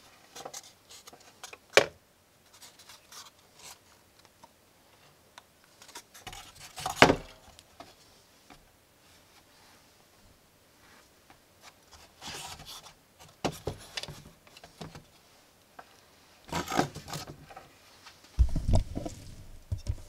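Hands handling a wooden lantern and its cable on a wooden workbench: scattered rubbing and scraping, with a sharp click about two seconds in, a louder knock about seven seconds in, and a low thump near the end.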